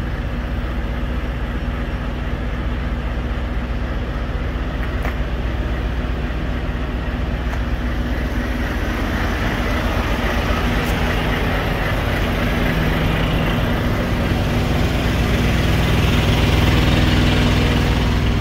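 Vehicle engine idling with a steady low hum, while a broader rushing noise swells gradually louder over the second half.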